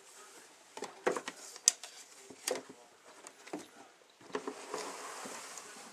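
Scattered light clicks and knocks of plastic as a plastic hide and a snake tub are handled in a rack, one sharper knock about a second and a half in, then a softer rustling slide near the end.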